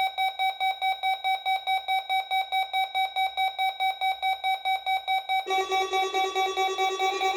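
Weather alert radio receivers sounding their alarms: a buzzy electronic beep pulsing about four times a second, joined about five and a half seconds in by a second receiver's lower-pitched beeping. They are set off by the weather radio station's weekly test alarm tone.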